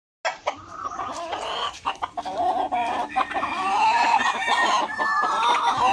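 A flock of free-range native chickens clucking and calling over one another as they are fed, with a few sharp clicks among the calls.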